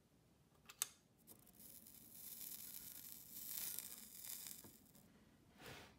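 A sharp click, then a soldering iron melting solder into a joint on a sound card's circuit board, the flux sizzling and hissing for a few seconds with a short swish near the end.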